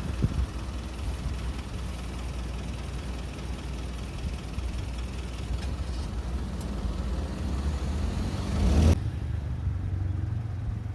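Road traffic driving past: steady tyre and engine noise of passing cars, swelling as one vehicle passes close about nine seconds in, after which the hiss cuts off sharply.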